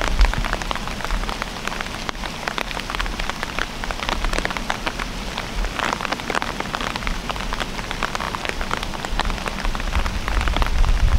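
Steady rain falling, with many sharp drop taps close by.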